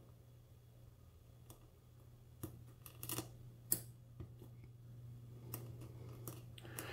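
Faint, scattered metallic clicks of a Sparrows .015 steep hook pick working the pin stacks of a Schlage-keyway pin-tumbler lock under tension, about a handful of irregular ticks. The pick is slipping off the pins.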